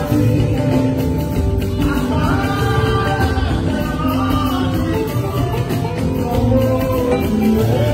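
Church choir singing a hymn together, with instrumental backing and a steady bass line underneath.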